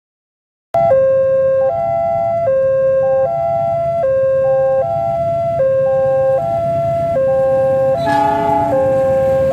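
Railway level-crossing warning alarm starting about a second in, an electronic two-tone signal switching steadily between a lower and a higher note, over the low rumble of waiting traffic. Near the end a short blast from the approaching train's horn cuts in.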